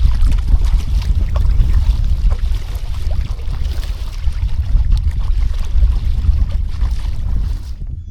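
Wind buffeting the microphone: a heavy, gusty rumble with a hiss over it, cutting off suddenly near the end.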